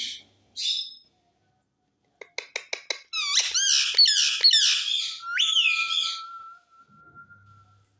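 Parrot giving two short squawks, then a quick run of clicks, then a loud burst of warbling calls that sweep rapidly up and down in pitch, ending in one long, steady whistled note.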